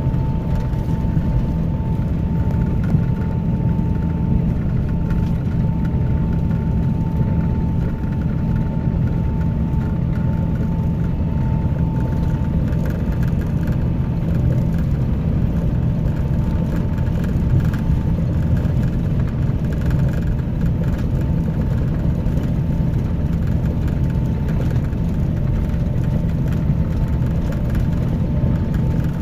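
Scania K310IB coach running steadily: a deep, even drone, with a thin steady whine above it that fades about halfway through.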